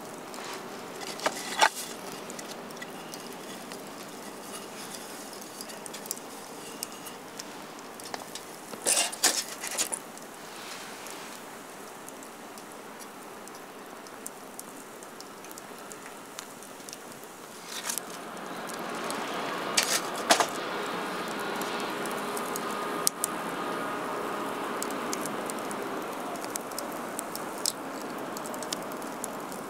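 Scattered clicks and clinks of small gear being handled, with a louder cluster about nine seconds in. From about eighteen seconds in, a steadier hiss-like noise rises and stays.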